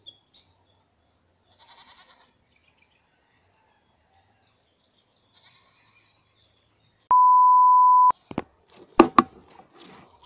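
A steady electronic beep at one pitch, held for about a second and cut off sharply, followed by a few sharp clicks and a short burst of noise.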